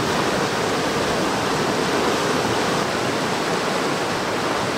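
Fast mountain stream rushing over rocks in whitewater rapids: a steady, even rush of water.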